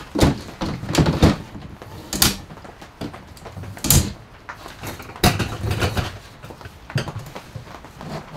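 Knocks and clunks of a black plastic folding table being opened out and its metal legs set in place, about eight separate hits with rustling between them, ending with a thud as a portable power station is set down on the tabletop.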